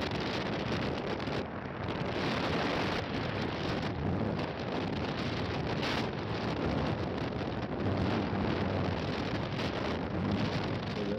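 Wind buffeting the microphone over the rush of a moving car on the road, a loud steady roar without let-up.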